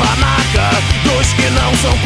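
Loud punk and heavy-metal rock music with distorted guitars and drums playing on without vocals.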